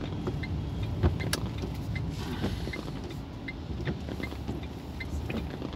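Car engine and tyres rumbling steadily, heard from inside the cabin as the car creeps along at low speed, with a few light clicks.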